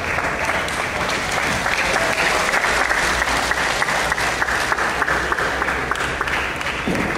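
A crowd applauding: many hands clapping in a steady, dense patter.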